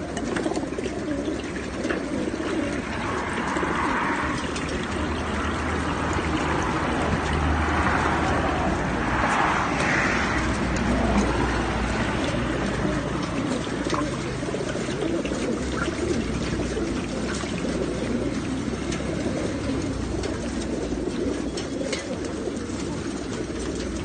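A crowd of caged racing pigeons cooing steadily together. Two short rushing sounds stand out over them, about three and about nine seconds in.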